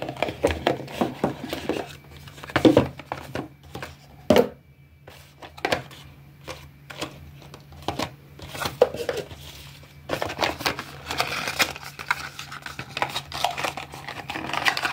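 Cardboard packaging being handled: a small accessory box lifted from the speaker's box and its inner tray slid out, with rustling, scraping and irregular clicks and knocks, two sharper knocks within the first five seconds.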